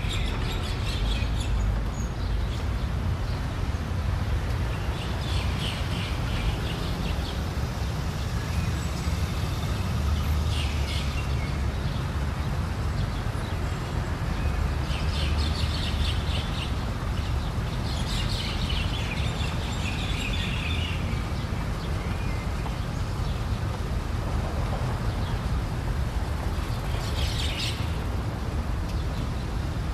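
Small birds chirping in short bursts every few seconds over a steady low rumble, like distant traffic.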